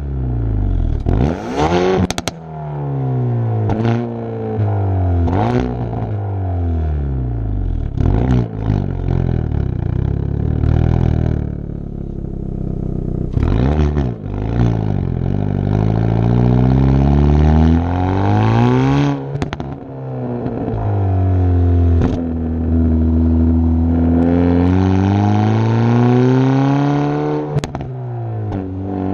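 Hyundai i30 N Performance's 2.0-litre turbocharged four-cylinder engine and exhaust revved over and over, each rev rising and falling back. Sharp pops and bangs come on the overrun, the car's 'misfire' crackle.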